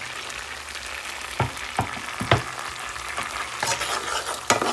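Chopped onions, green onions and bell peppers sizzling in melted butter while a metal spoon stirs them, with several sharp scrapes and knocks of the spoon against the pan.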